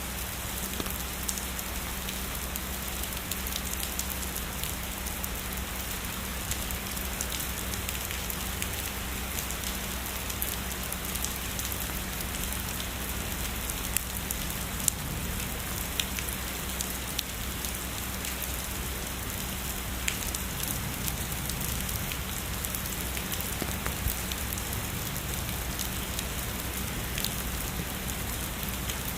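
Steady heavy rain falling on a surface: an even hiss with many scattered sharp drop hits.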